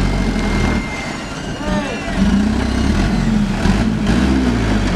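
A loaded diesel light truck's engine running under load as it crawls through deep mud ruts, with people's voices shouting and talking over it.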